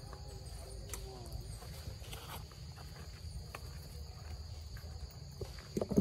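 A steady high insect drone over a low rumble, with light rustling and soft steps of monkeys moving over dry leaf litter. A short louder sound comes right at the end.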